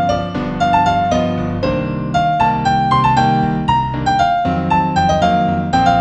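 Piano instrumental music: a melody of single notes over held chords.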